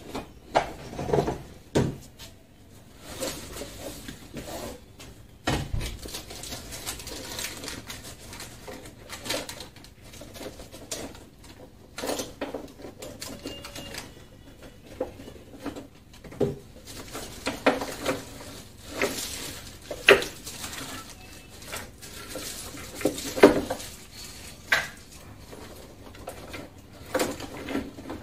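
Irregular knocks, clicks and rustling as things are handled and shifted inside a wooden, aluminium-edged camper kitchen storage cabinet, as an umbrella is dug out of its middle space. A few sharper knocks stand out, the loudest about twenty seconds in and again about three seconds later.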